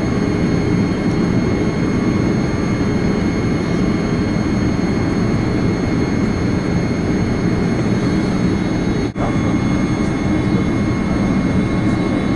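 Steady cabin noise of a Boeing 787-8 in flight on approach: the rumble of its General Electric GEnx-1B engines and airflow, with faint steady high tones above it. The sound drops out for an instant about nine seconds in.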